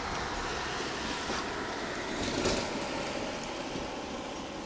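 Popper lure jerked back across the pond surface, making two short splashy pops about one second and two and a half seconds in, over a steady hiss.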